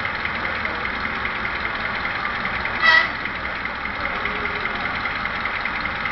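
Sound decoder of an HO scale Vossloh G2000 diesel locomotive model playing a steady diesel engine idle through its small speaker, with one short horn toot about three seconds in.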